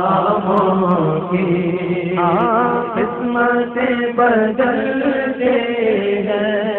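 A man chanting an Urdu naat in long, drawn-out melodic lines with no clear words, over a steady low hum.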